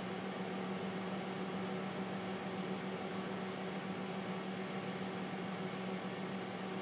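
Steady hum and fan noise of the running TRS-80 Model 16B computer, unchanging throughout.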